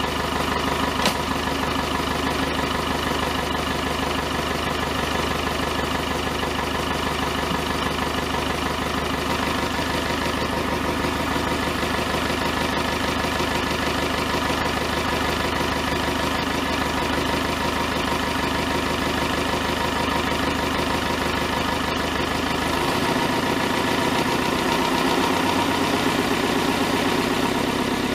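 David Brown 1212 tractor's four-cylinder diesel engine idling steadily, freshly swapped in and on its first run. A brief click sounds about a second in, and near the end the engine note changes and gets slightly louder.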